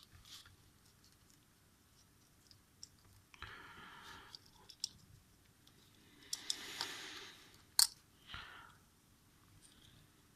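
Faint handling noises of small smartphone parts during reassembly: scattered light clicks, two brief rustling scrapes, and one sharper click about eight seconds in.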